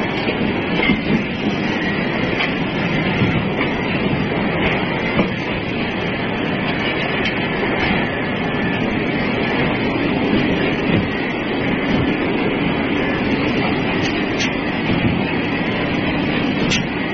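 Steady rumble and clatter of running forging machinery, with a few faint knocks of metal on metal.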